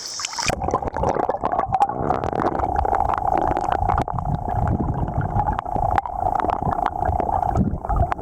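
Muffled, low rushing and gurgling of river water, with many small clicks and knocks of stones, starting about half a second in.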